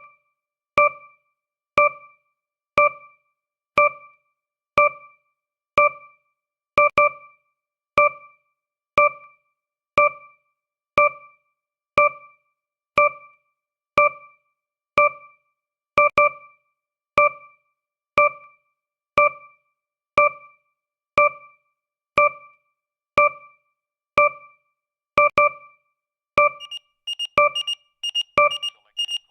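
Countdown timer sound effect: a short pitched beep about once a second, each fading quickly. In the last few seconds it gives way to a fast run of alarm beeps.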